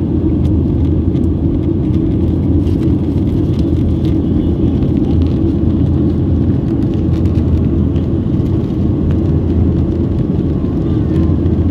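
Jet airliner cabin noise in cruise: the engines and the airflow over the fuselage make a steady low drone.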